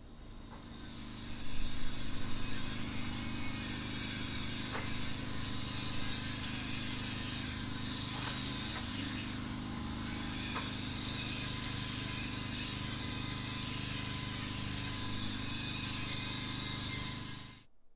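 A steady engine drone under a loud, even hiss, running unchanged for many seconds and cutting off abruptly near the end.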